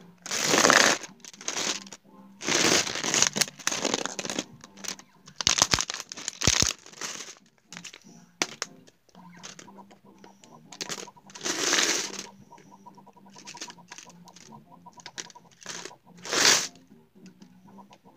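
An object shaken close to the microphone in separate noisy, rustling bursts, each under a second or two long, with the loudest about a second in and another strong one near the end.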